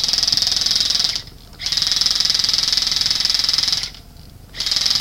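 Airsoft rifle firing full-auto in long bursts, a fast mechanical chatter of shots. There are two brief pauses, about a second in and about four seconds in.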